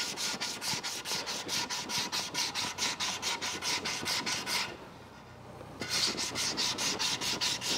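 Sandpaper rubbed back and forth by hand over a hydrofoil wing to take out surface scratches, in quick, even strokes about four or five a second. The strokes stop for about a second a little past the middle, then start again.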